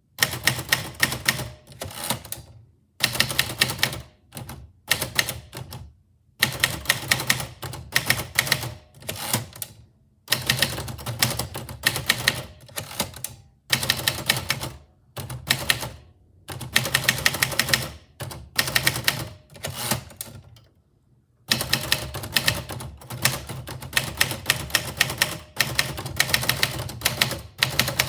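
Typewriter keys striking in quick runs of clicks, in bursts of a second or two with short pauses between them as lines of poetry are typed.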